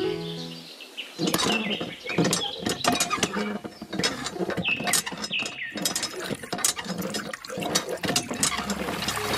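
Miniature hand pump being worked by its lever, giving rapid, irregular plastic clicks and knocks with a few short squeaks. Water starts to trickle from the spout near the end.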